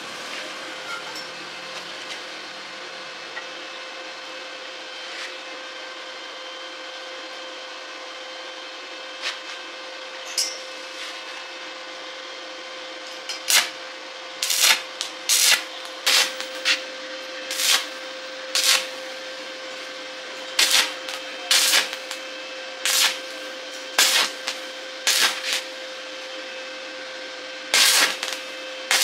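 Short scraping strokes, about one a second, starting about halfway through, over a steady low hum.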